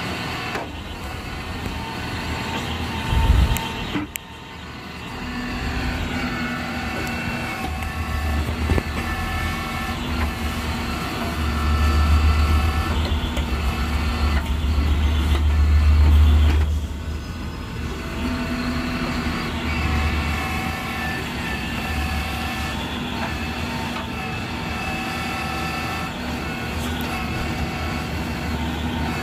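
Eicher 650 4WD tractor's diesel engine running steadily under load at about 1500 rpm, driving a BULL backhoe attachment's hydraulics as it digs and dumps soil, with a hydraulic whine that shifts in pitch. The engine's low rumble swells louder for several seconds in the middle, and there is a short knock about three seconds in.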